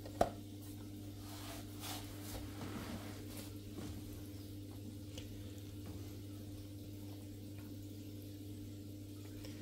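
Steady low electrical mains hum, with a fainter higher hum above it, from the aquarium equipment in the open cabinet. A sharp click comes just after the start, followed by faint handling rustles and light taps over the next few seconds.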